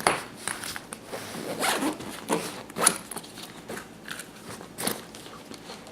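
Zipper on a fabric carry bag being pulled in several short strokes, with some rustling of the bag in between.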